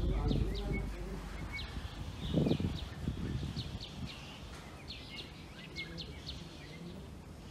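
Faint background noise with a scatter of short, high, downward-sliding bird chirps, fading out gradually.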